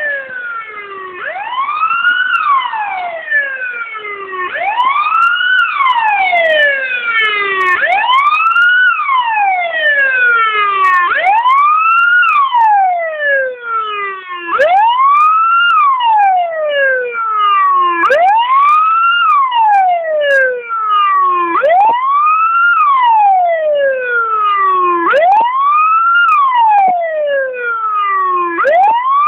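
Fire engine's siren wailing loudly. Each cycle rises quickly in pitch and falls slowly, about every three and a half seconds, with fainter overlapping sweeps.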